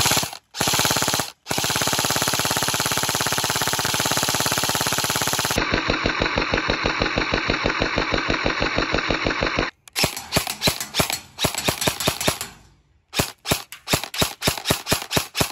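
Airsoft SMG firing on full auto: a short burst, then one long continuous burst of about eight seconds, then a string of short bursts and quick separate shots with a brief pause near the end.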